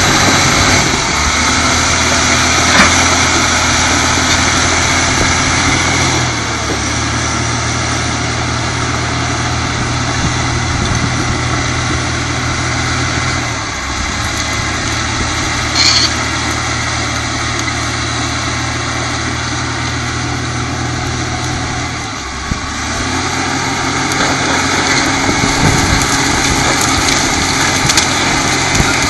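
Caterpillar D5M crawler dozer's diesel engine running hard as it pushes brush and trees, its note dropping and picking up several times as the load changes. A short high squeak comes about halfway through.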